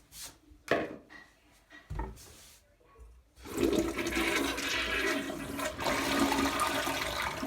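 Gerber Viper toilet flushing a load of salad: a couple of short knocks, then from about three and a half seconds in a loud, steady rush of water through the bowl.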